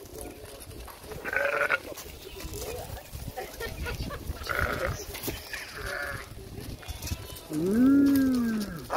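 Sheep bleating: several short calls, then one longer, louder call that rises and falls in pitch near the end.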